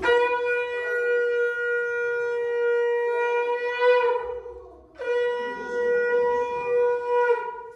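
Conch shell (shankha) blown in two long, steady notes with a short breath between them, the first about four seconds long and the second about two and a half.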